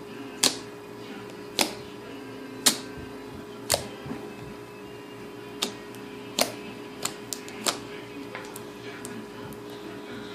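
Fluffy slime giving off sharp pops as it is pressed and worked, about one a second, then a quicker run of three pops about seven seconds in.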